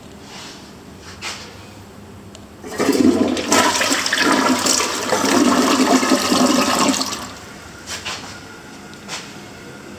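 2020 Project Source Pro Flush toilet flushing: a loud rush of water starts about three seconds in, lasts some four seconds, then drops to a quieter steady hiss.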